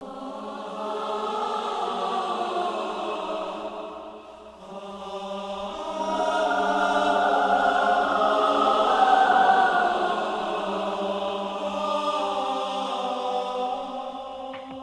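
Music of sustained choral chanting: voices hold long, drone-like notes. The sound dips briefly and then swells louder toward the middle.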